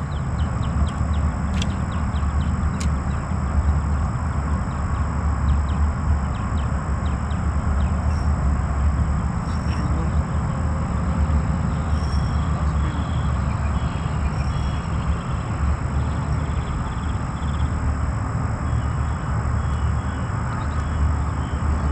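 Steady low outdoor rumble with an even noise haze over it, a few faint ticks in the first few seconds and faint short high chirps around the middle.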